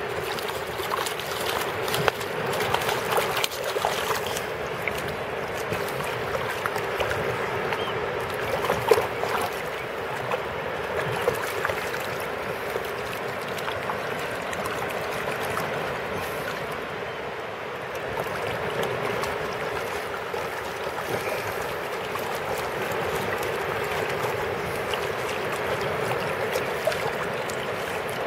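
Shallow seawater splashing and sloshing as a dog paws and noses at a stick on the sandy bottom. A few sharper splashes come in the first dozen seconds, then a steadier wash of water.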